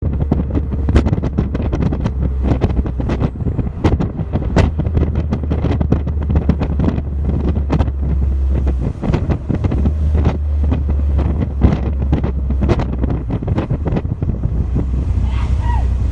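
Steady low engine drone under heavy wind buffeting on the microphone.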